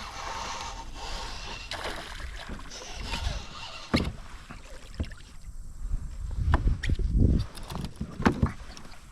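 A steady rush of water or wind, then from about four seconds in a run of sharp knocks and heavy thumps on and around a kayak, the heaviest a little past the middle.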